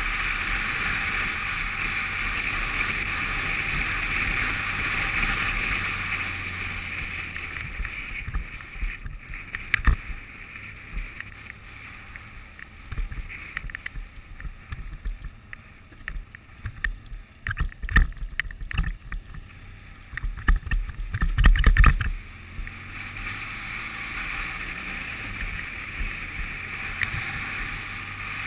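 Adventure motorcycle riding a wet dirt road, its engine a low drone under steady wind rush on the microphone. In the middle the wind eases and a run of sharp knocks and thuds comes through, loudest about three-quarters of the way in, as the bike rides over the rough, muddy surface.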